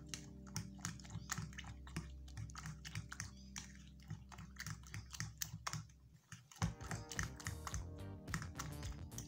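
Fork whisking beaten eggs and diced vegetables in a ceramic bowl, the tines clicking against the bowl several times a second, over background music.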